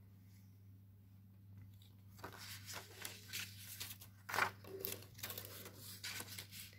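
Thin plastic stencil sheets and their pink paper insert being handled and shifted, rustling and crinkling in irregular bursts from about two seconds in, over a faint steady low hum.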